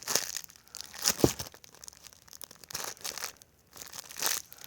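A homemade squishy toy being squeezed and handled, giving irregular crinkling and rustling, with one sharp crackle about a second in.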